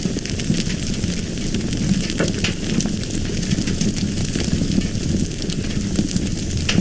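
Fire burning steadily, a dense rushing hiss with frequent small crackles and pops.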